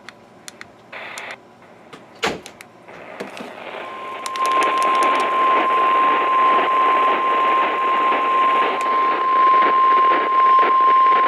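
NOAA Weather Radio 1050 Hz warning alarm tone, one steady pitch starting about four seconds in and holding, over radio static. It signals that a warning broadcast is about to follow. A sharp click comes about two seconds in, and the static rises just before the tone.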